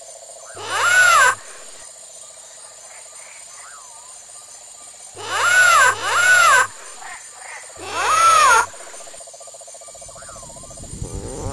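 Creature squawks played as the animatronic baby allosaurus's voice: four loud calls, each rising then falling in pitch, one about half a second in, two in quick succession around the middle and one more shortly after. A steady buzz runs beneath and cuts out near the end.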